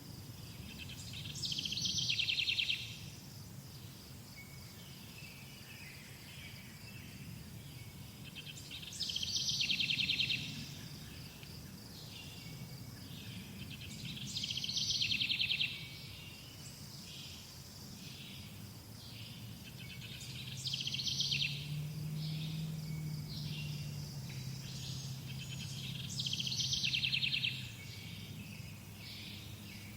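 Summer countryside birdsong: a songbird repeats a fast, buzzy trilled phrase about every five to six seconds, five times in all. Under it runs a steady, high insect chirring, like crickets.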